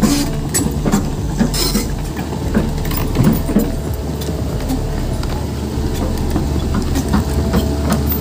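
Tracked excavator running, its diesel engine droning steadily while the steel tracks clank as it crawls over loose dirt and rock.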